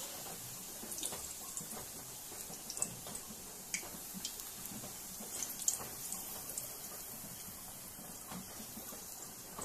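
Bitter gourd slices frying in hot oil in a kadai: a steady sizzle with scattered crackles and pops.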